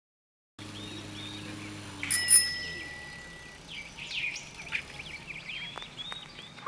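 Birds chirping in short, quick calls, with a bright ringing ding about two seconds in.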